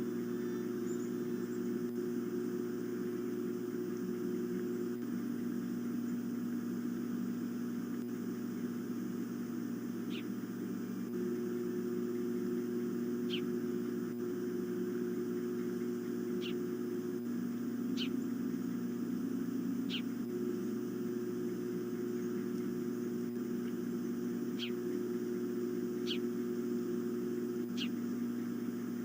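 Steady electrical hum from the nest cam's microphone, with about eight short, high, downward-sliding osprey chirps a few seconds apart, fainter than the hum.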